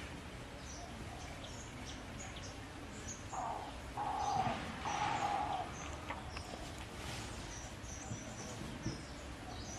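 Small birds chirping with short, high, repeated notes. About three to six seconds in, three short steady calls sound one after another from an animal that cannot be named.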